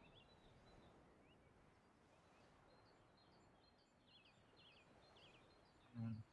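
Near-silent outdoor ambience with small birds chirping faintly, a quick run of chirps about four seconds in. A brief low thump near the end.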